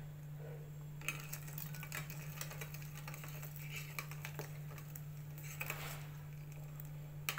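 A spoon stirring thick thandai milk in a stainless steel saucepan, scraping and clinking against the pot's sides and bottom from about a second in.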